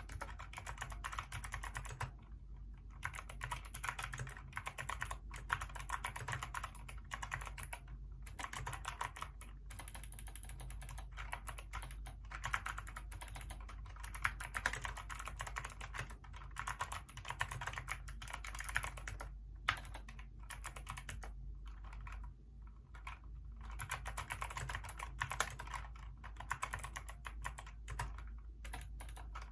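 Hacker K611 keyboard with Kailh optical switches being typed on: a fast, steady stream of key clicks, broken by a few short pauses.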